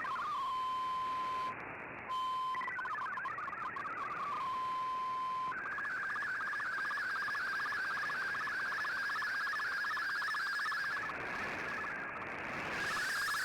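Shortwave digital-mode data signal received on a communications receiver: stepping tones and a steady beep-like tone with a short dropout, then from about five seconds in a fast, evenly repeating warble over static hiss.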